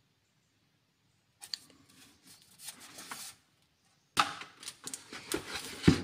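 Handling noise as a CB radio is lowered and set down into its moulded-pulp cardboard packaging tray. After a second or so of quiet come soft rustles, then from about four seconds in louder scraping and rustling with knocks, and a sharp thump just before the end.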